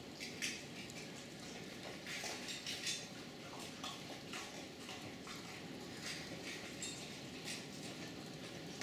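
Summer rain shower falling steadily, with drips tapping irregularly on hard surfaces close by, several in quick succession at times.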